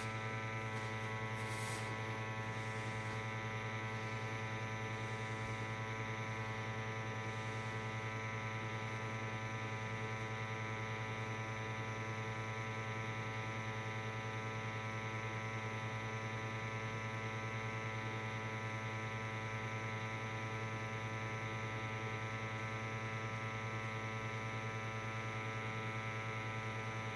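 Steady electrical hum with a buzzy edge, unchanging in pitch and level, with a few faint clicks in the first couple of seconds.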